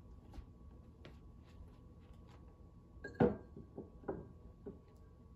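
A candle being lit in a glass votive holder: one sharp strike a little past three seconds in, then a few soft clicks and taps.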